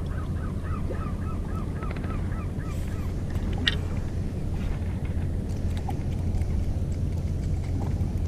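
A gull calling in a quick series of short, repeated calls, about four a second, which die away about three seconds in. Under it runs a steady low rumble.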